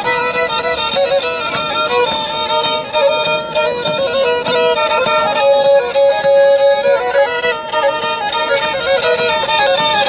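Black Sea kemençe, the small upright three-string fiddle, bowed in a quick, ornamented folk melody over a held note.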